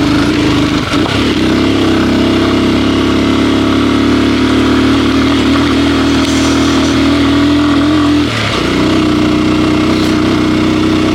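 Vehicle engine pulling under load up a steep hill, a steady drone with a wind-like rush. The note breaks briefly about a second in and again about eight seconds in, then carries on.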